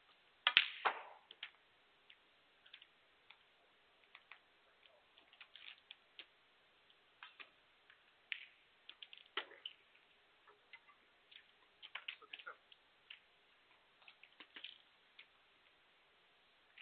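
Snooker shot: the cue tip strikes the cue ball and the cue ball clicks sharply into an object ball about half a second in, potting a ball. Scattered faint clicks and taps follow.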